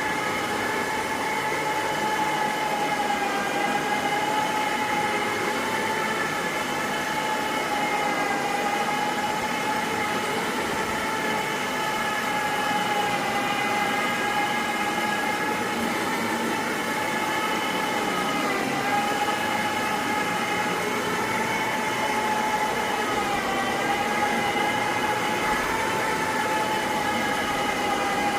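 Carpet-cleaning machine's motor running with a steady high whine, its pitch wavering slightly.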